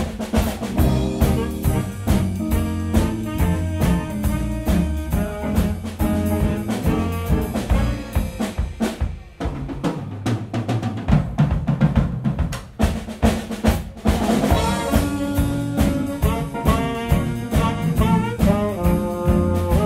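A jazz band plays a swinging blues: a saxophone section plays over a drum kit, with a low bass line stepping underneath. From about two-thirds of the way through, the horns play a louder riff together.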